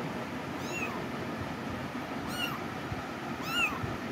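Kitten meowing three times, short high-pitched mews that each rise and then fall in pitch; the last is the loudest.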